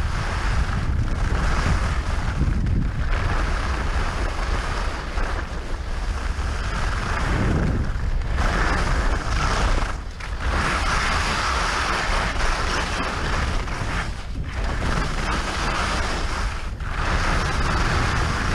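Wind buffeting a GoPro Hero 5 Session's microphone while skiing fast downhill, with the hiss of skis running over groomed snow. The hiss dips briefly several times.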